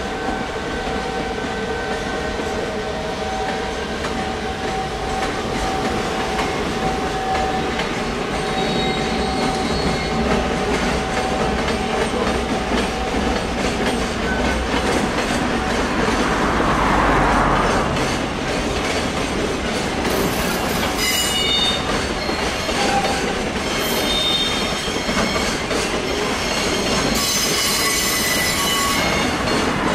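Container freight train wagons rolling past, wheels clicking over rail joints and squealing, with several steady squeal tones. Sharper high squeals come about twenty seconds in and again near the end.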